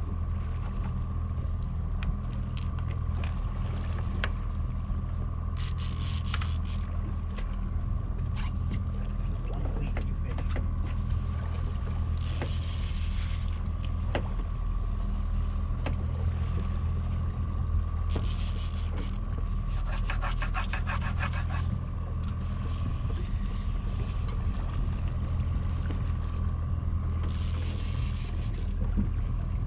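Charter boat's engine running steadily at trolling speed, a low drone with a thin steady whine above it. Short bursts of hiss come every few seconds, and a rapid run of clicks about twenty seconds in.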